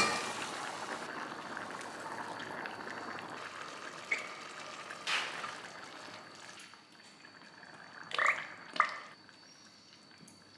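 Sliced mushrooms tipped into a steel pot of frying beef, the sizzle slowly dying down as the food cools. A wooden spoon stirs the pot, with a couple of sharp knocks near the end.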